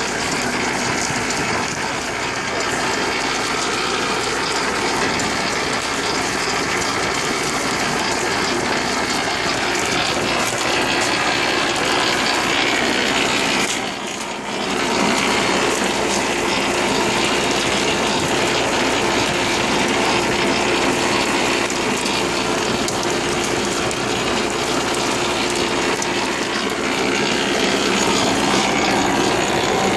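Tractor-drawn double-row potato harvester running: a steady mechanical clatter of chains and gears. The sound drops briefly about halfway, then carries on.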